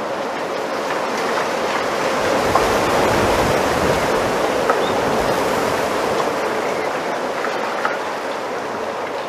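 Wind through a bamboo grove, the leaves rustling in a steady rushing hiss that swells to a gust about three seconds in and eases off again.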